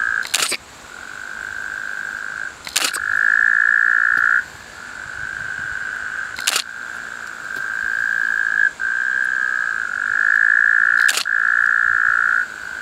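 Frogs calling at night in a continuous high trill that swells and fades in stretches of a second or two. Four sharp camera-shutter clicks fall across it.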